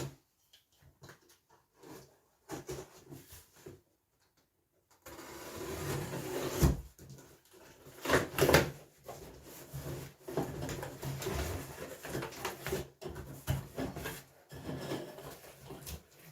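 Rummaging through a box of diesel-heater kit parts: a few scattered clicks, then rustling packaging with several knocks and clunks from about five seconds in.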